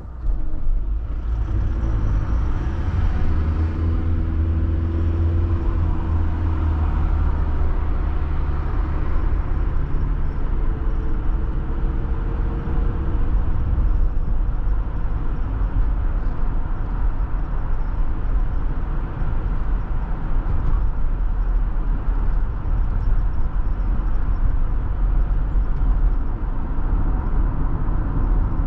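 Car pulling away from a standstill and driving on, the engine note rising over the first few seconds as it accelerates, then a steady low rumble of engine and tyres on the road.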